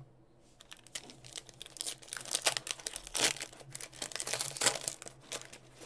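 Foil wrapper of a Panini Prizm World Cup hobby pack crinkling and tearing in the hands as it is opened. A dense run of crackles grows louder about two seconds in.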